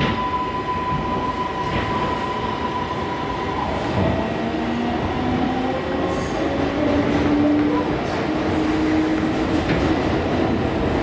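R142A subway car's electric propulsion as the train pulls away. A steady high hum gives way, about four seconds in, to a motor whine that climbs in a series of rising steps as the train accelerates, over steady wheel and rail noise.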